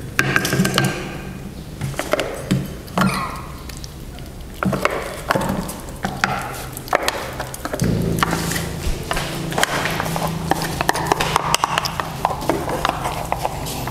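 Scattered knocks, taps and clinks as dishes are set down on a low wooden table and cats climb onto it to eat. A steady low hum sets in about eight seconds in.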